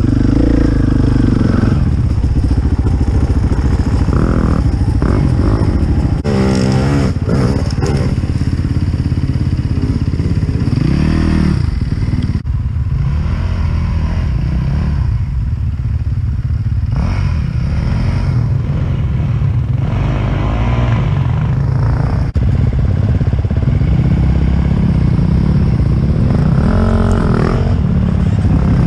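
KTM enduro dirt bike's engine heard close up from on the bike, the revs rising and falling in repeated surges as it is ridden.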